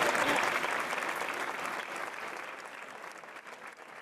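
Crowd applauding, the clapping fading away over a few seconds.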